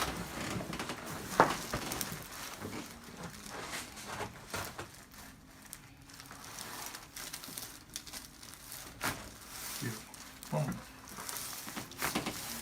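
Rustling and crinkling of a patient shifting and turning over on a chiropractic table, with a sharp click about a second and a half in. Near the end comes a short crack, a joint popping under a chiropractic adjustment.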